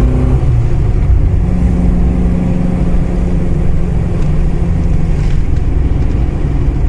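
Mitsubishi Astron 2000 four-cylinder engine running while the Sigma is driven. The engine's pitch shifts about half a second in, then holds steady. The exhaust has a rattly muffler.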